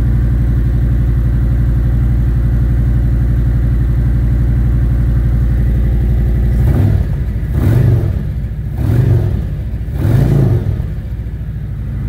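Harley-Davidson Milwaukee-Eight V-twin idling steadily, then revved in four short blips about a second apart starting about seven seconds in, before settling back to idle. The engine is being run just after fresh spark plugs were fitted to cure a misfire at warm-up.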